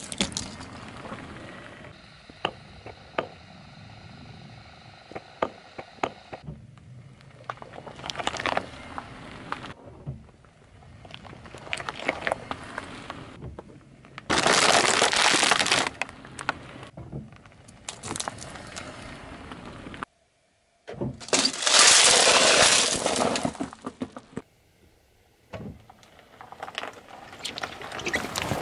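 A car tyre rolling slowly over objects on asphalt and crushing them: a run of sharp cracks and crunches, with two loud, long stretches of crackling, one about halfway through and one about two-thirds through.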